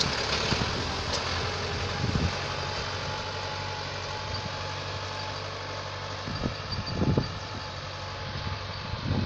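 Tractor engine running steadily, with a few low thumps about two seconds in and again around seven seconds.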